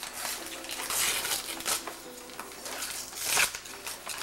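Christmas wrapping paper being torn and crinkled by hand as a gift is unwrapped: a run of short rips and rustles, the loudest about three and a half seconds in.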